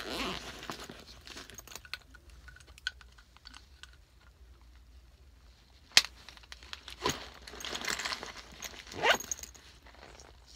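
A fabric bag being handled: rustling and crinkling with small clicks, one sharp click about six seconds in, and louder scraping rustles near the end.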